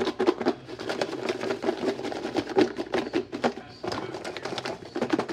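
Candy pieces rattling and knocking inside a lidded plastic food-storage container shaken hard by hand to coat them in chili powder: a fast, uneven rattle.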